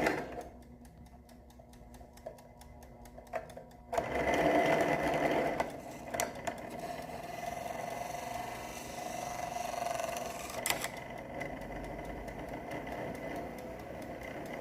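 A FAMA air fryer's small fan motor running with a whirring rattle. It cuts out just after the start and comes back abruptly about four seconds in, then runs on steadily with a few sharp clicks. The owner takes the noise for play in the fan's shaft.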